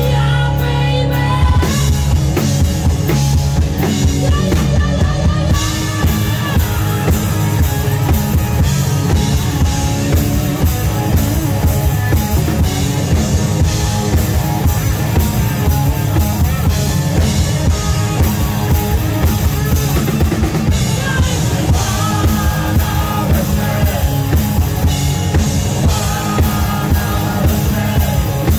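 Rock music with a steady drum-kit beat and bass, played without a break.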